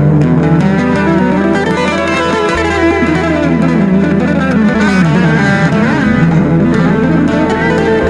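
Electric guitar playing fast runs that sweep up and down in pitch, over a steady low bass note, in live band music.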